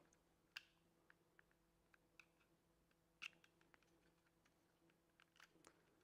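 A few faint, scattered plastic clicks and taps as a screwdriver tip prises at the snap-in retaining tabs of a Mercedes C-Class window switch panel's housing, the clearest a little after three seconds in.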